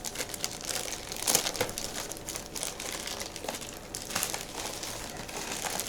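Packaging crinkling and rustling in irregular crackles as a mailed parcel is opened by hand.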